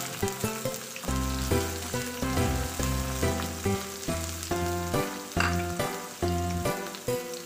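Sliced red onion and garlic sizzling in hot oil in a wok as they are stirred with a wooden spatula. Background music with short notes, changing about twice a second, plays over the sizzle.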